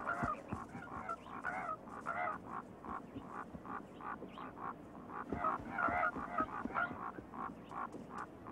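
Coyotes yelping in a rapid, uneven series of short, wavering, high calls as they fight, with a few soft low thumps.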